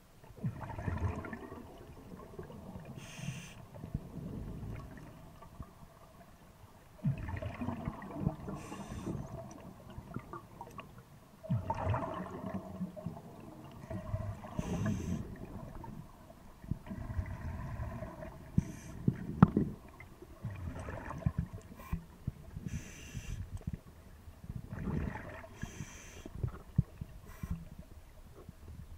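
Scuba diver breathing through a regulator underwater: bursts of exhaled bubbles gurgle and rumble every few seconds, with a short hiss of the demand valve on each breath in between.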